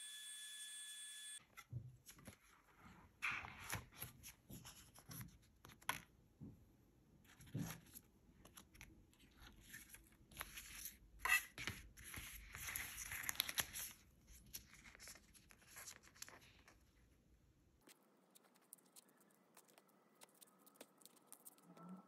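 Paper being handled by hand: irregular crackles and rustles, busiest about eleven to thirteen seconds in, then sparser and fainter.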